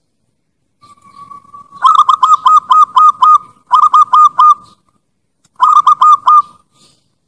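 Zebra dove (perkutut) cooing: a soft drawn-out purr, then three phrases of quick, clipped coo notes, the first phrase the longest at about seven notes and the next two about four each.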